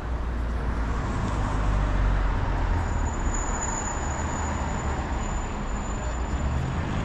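City street traffic: road vehicles running past with a low rumble, loudest about two seconds in. A thin high-pitched whine joins from about three seconds in.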